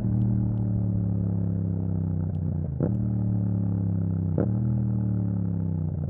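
Yamaha MT-07's parallel-twin engine running through an Akrapovic exhaust with the dB killer removed, its revs easing slowly down. A short sharp crack comes about three seconds in and another about four and a half seconds in.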